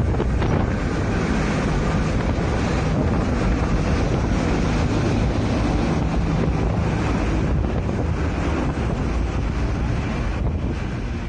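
Diesel-hauled freight train rolling slowly past at close range, a ChME3 shunting locomotive followed by freight wagons, with wind buffeting the microphone in a steady low rumble.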